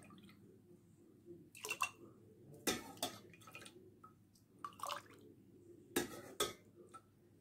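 A small glass dipped into a metal pot of milk and lifted out to pour: scattered light clinks of glass against the pot, with dripping and splashing milk.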